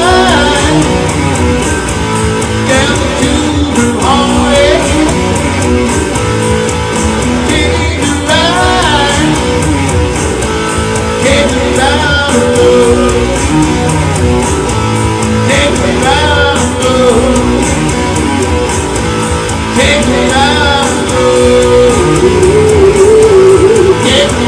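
A rock song played on electric guitar with a man singing, the playing and singing loud and steady throughout.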